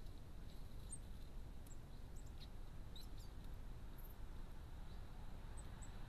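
Small birds giving short, high, thin chirps every second or so over a faint, steady low background rumble.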